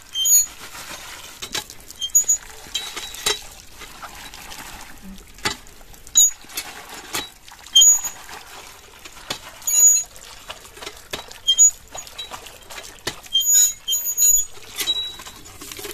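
Cast-iron hand pump being worked by its lever handle, giving short high metallic squeaks with the strokes, every second or so, over water gushing from the spout and splashing into a plastic bag of mangoes being washed.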